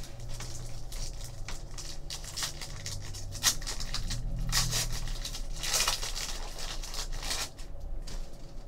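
2013-14 Panini Contenders hockey card packs being torn open and crinkled by hand: a run of irregular crackling foil-wrapper rustles, with sharper rips about three and a half seconds in and again near six seconds.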